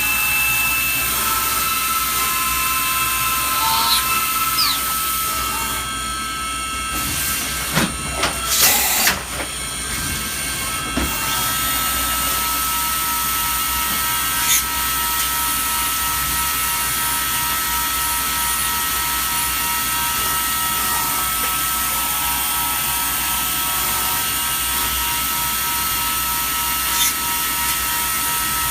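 CNC milling machine running as it cuts a small metal part: a steady high spindle whine over a constant cutting hiss. A few sharper, louder noises break in about eight to nine seconds in.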